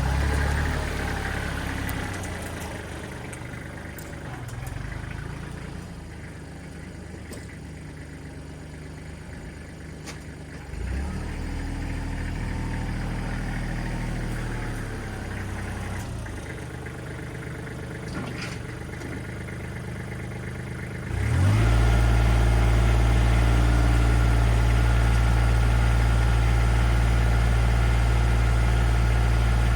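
Engine of a machine pushing earth, running at varying speed under changing load, then throttled up about 21 seconds in to run loud and steady.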